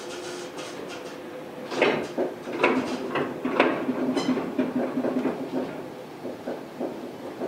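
Inside a Chiba Urban Monorail 1000-series car: a steady whine fades in the first couple of seconds, then irregular clattering knocks and clicks sound over a steady low hum.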